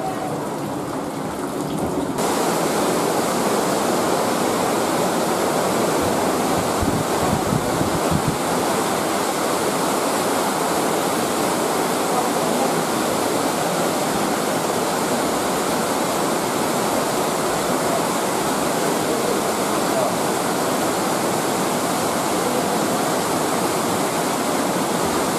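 Rushing water in a cave, a steady dense hiss that becomes louder and brighter about two seconds in.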